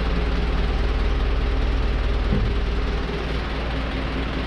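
A steady low mechanical hum with an even rushing noise, with a short downward-sliding sound about two and a half seconds in.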